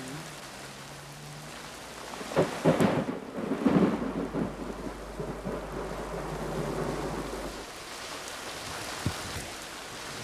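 Steady rain, with a rumble of thunder rolling in about two seconds in and dying away over the next few seconds.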